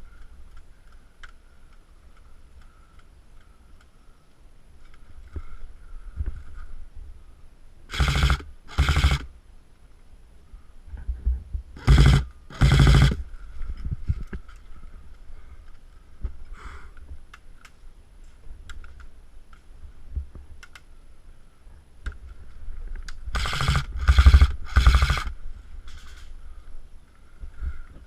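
Airsoft replica rifle firing short full-auto bursts, seven in all, in three groups: two about 8 seconds in, two about 12 seconds in, and three close together near the end.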